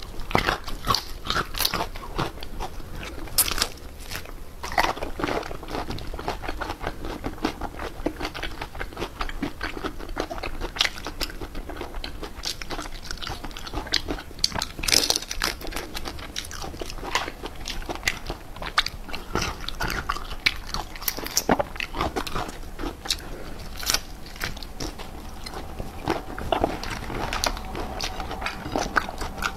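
A person eating marinated raw shrimp up close: sucking the shrimp and chewing, with many irregular sharp wet clicks and snaps throughout.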